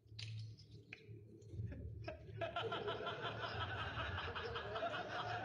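A man laughing heartily, breaking into continuous laughter about two and a half seconds in, over a low steady hum. A few short sharp sounds come before it.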